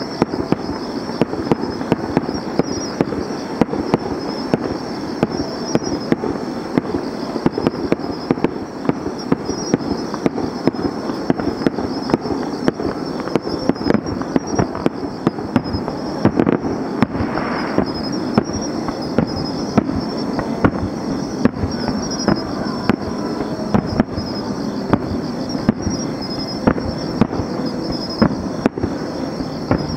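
Distant fireworks going off in a rapid string of pops, bangs and crackles over a continuous rumble.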